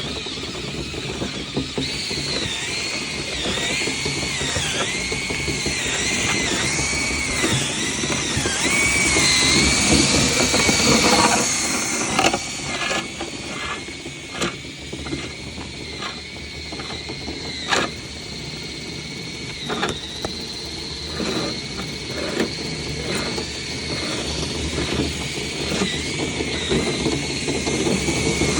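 Power drill spinning a rotary dryer-vent cleaning brush, its motor whine repeatedly dipping in pitch and recovering as the brush meets resistance, with scraping and a few knocks.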